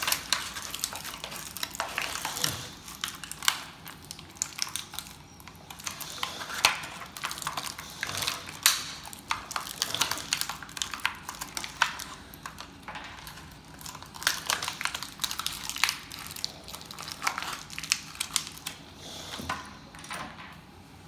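Irregular clicking, crackling and rattling of small plastic toy pieces and their packaging being handled and unwrapped.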